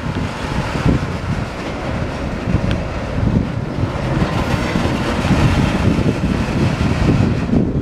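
Tank cars and boxcars of a mixed freight train rolling past on the rails, a steady rumble of wagon wheels with irregular low knocks.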